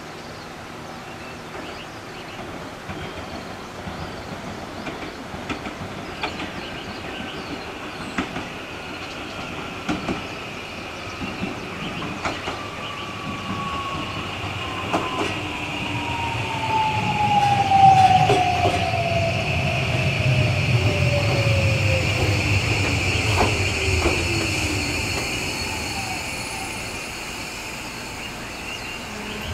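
JR Kyushu 821 series electric train pulling into a station and braking to a stop: wheels click over rail joints and the traction motor whine falls steadily in pitch as it slows, with a steady high squeal over the second half. It is loudest about two-thirds of the way through as the cars come alongside, then the whine dies away.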